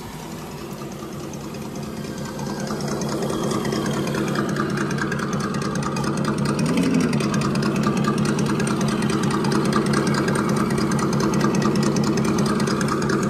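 Radio-controlled scale crawler trucks driving on a dirt trail: a steady motor and drivetrain whine with a fine rapid ticking, growing louder over the first few seconds, with a brief rise in pitch about seven seconds in.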